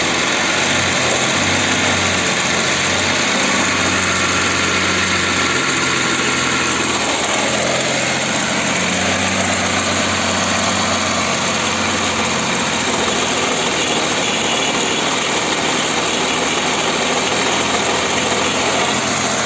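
Audi Q7's 3.6 FSI VR6 engine held steadily above idle, rattling from the timing chain at the rear of the engine, a noise absent at idle. The mechanics take it as a sign of a broken chain tensioner or a missing plastic pad on it.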